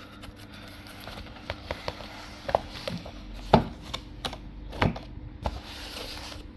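Scattered taps, knocks and rustles of a keyboard's cardboard box and packaging being handled and opened, with a few sharper knocks near the middle.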